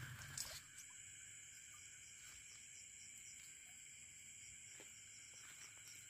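Near silence, with a faint, steady chorus of night insects, a continuous high-pitched drone.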